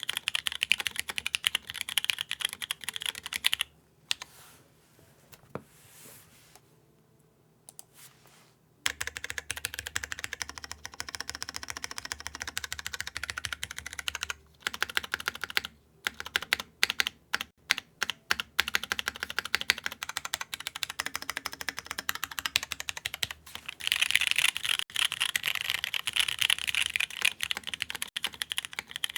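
Mechanical keyboard typing: Cherry MX Brown Hyperglide (MX1A) tactile switches on a Typ60 with a carbon-fibre plate, GMK keycaps and no foam, clacking under fast typing. The carbon-fibre plate comes through over the switches' scratch and clack, in a way the owner likens to resin. The typing stops for about five seconds a few seconds in, then resumes fast, with a run of single, spaced keystrokes in the middle.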